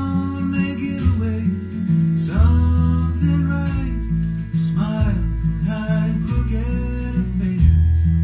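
Acoustic guitar music playing from a vinyl record on a turntable: a steady picked bass line under higher melody notes that bend in pitch.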